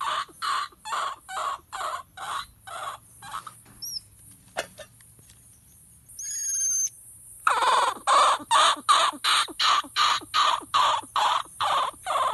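Orphaned infant vervet monkey crying: a run of short, rapid calls, about three a second, that stops for a few seconds midway and then starts again. These are the distress cries of a baby separated from its mother.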